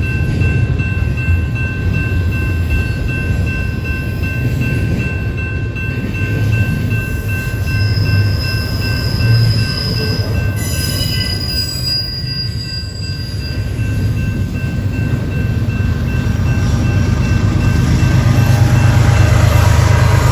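Double-stack intermodal well cars of a BNSF freight train rolling past with a steady rumble of wheels on rail, a brief high wheel squeal joining about halfway through. Near the end the sound swells as the mid-train distributed-power GE ES44C4 locomotives come by with their diesel engines running.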